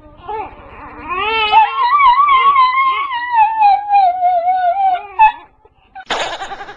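Dog howling along with a crying baby: one long wavering howl that slowly falls in pitch, over the baby's cries. A brief burst of sound comes near the end.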